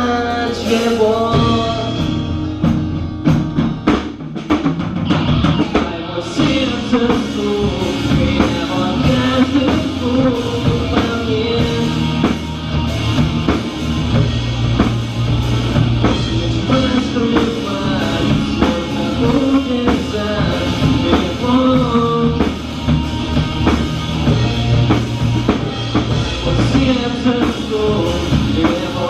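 Rock band playing: drum kit, bass and guitars with a melodic lead line. A few seconds in there is a break of sharp drum hits before the full band comes back in.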